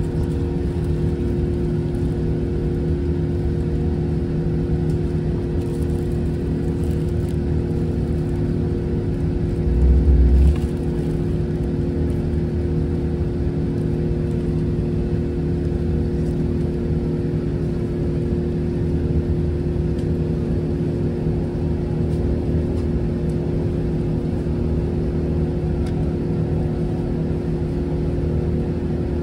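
Airbus A380 economy cabin noise in cruise: a steady drone of engines and airflow with constant low hum tones. A brief low thump comes about ten seconds in.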